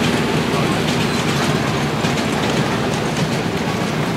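Miniature railway train running along the track with a steady, even running noise.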